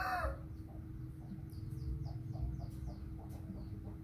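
The end of a rooster's crow, then faint, quick chirping and short clucks from chickens.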